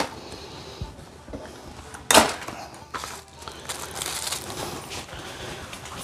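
Handling and clothing rustle from someone moving close by, with a sharp click at the start and a louder knock about two seconds in.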